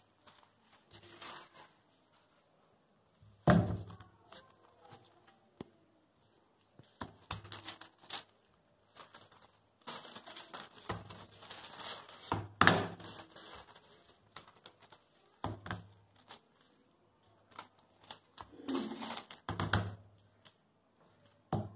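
Handling noise of small canvas boards being unpacked: irregular knocks and taps as the boards are separated and set down on a table, with rustling and crinkling of their thin plastic wrap. The sharpest knocks come about three and a half seconds in and about halfway through.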